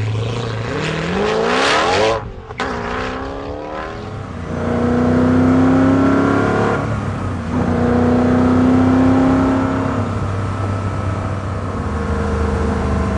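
Koenigsegg CCX's twin-supercharged V8 under full-throttle acceleration. The engine note rises steeply through the low gears, dips briefly at each upshift, then holds steadier tones as speed builds.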